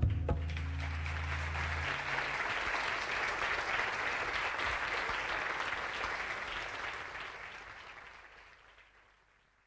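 Concert audience applauding at the end of a song while the last acoustic guitar chord rings out over the first two seconds. The applause fades out to silence near the end.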